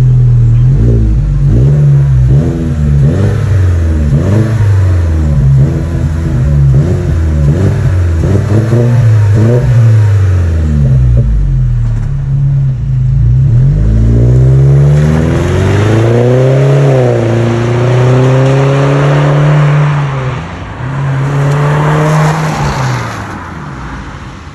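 Exhaust of an Opel Astra GTC 1.4 four-cylinder, fitted with a reworked system with a new muffler, a split to twin outlets and stainless tips, being revved. First comes a string of quick throttle blips about once a second, then longer revs that climb and hold for a few seconds each, fading near the end.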